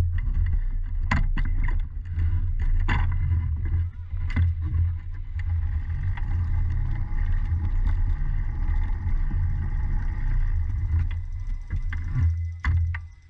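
Racing go-kart's engine idling with a loud low rumble as the kart creeps slowly in the pits, with a few sharp clicks over it. The engine cuts off just before the end.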